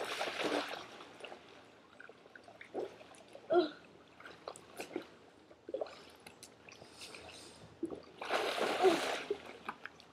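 Pool water splashing and dribbling as someone moves about on an inflatable float, with a larger splash at the start and another about eight seconds in.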